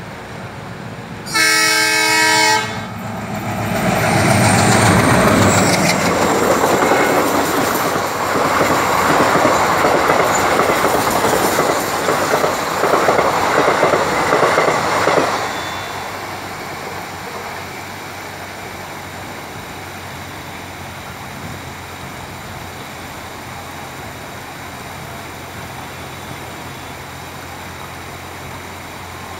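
A train horn sounds once for about a second as the locomotive approaches, then a passenger train runs past at speed, its wheels and coaches rushing by for about twelve seconds before the noise drops away. After that comes the steady rush of floodwater pouring over a canal weir.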